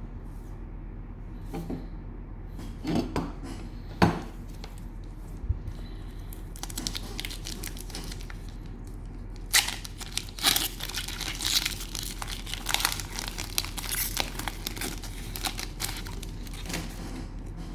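Cellophane wrapper of a trading-card cello pack being torn and crinkled by hand: a few sharp clicks first, then continuous crinkling from about six seconds in.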